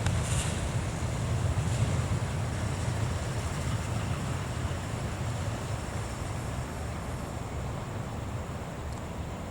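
Low rumble of a passing train, slowly fading.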